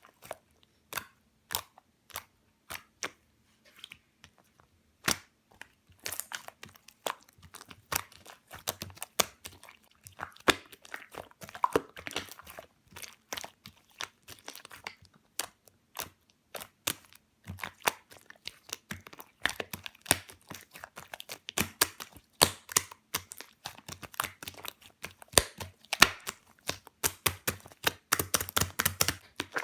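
Slime being squeezed and poked by hand, making irregular sharp clicks and crackling pops that come thicker in the second half.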